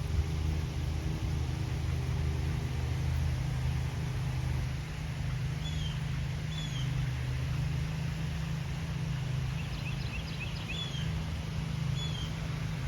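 Small birds chirping: short, high down-slurred calls, repeated a few times from about halfway, with a quick burst of chatter about ten seconds in. A steady low rumble, like distant traffic, runs underneath and is the loudest sound.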